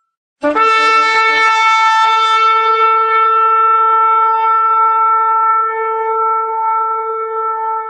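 A shofar sounding one long held blast that starts about half a second in, breaking a few times in its first second before settling into a steady note.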